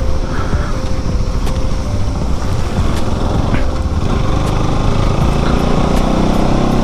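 Bajaj Pulsar NS200 single-cylinder engine running while riding, with a steady wind rumble on the microphone. The engine note changes about four seconds in.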